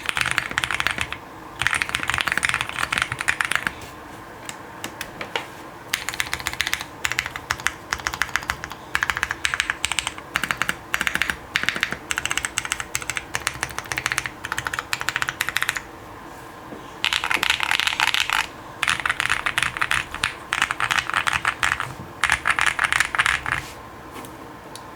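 Fast typing on an Owlab Link65 custom mechanical keyboard with an FR4 plate and foam, fitted mostly with lubed and filmed Zealios V2 tactile switches. The keystrokes come in quick bursts of a second or two, with short pauses between them.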